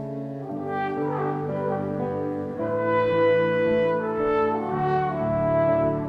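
Concert wind band playing a slow passage of held chords, the brass to the fore, with a quick falling run of notes about a second in, then swelling louder about three seconds in.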